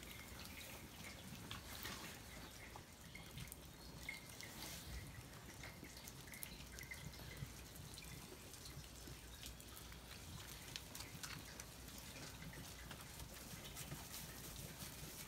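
Faint rain dripping: scattered, irregular drops and ticks over a low hiss.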